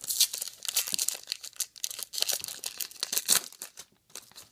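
Foil trading card pack wrapper being torn open and crinkled by hand: a dense run of crackling that dies down about three and a half seconds in, leaving a few light ticks.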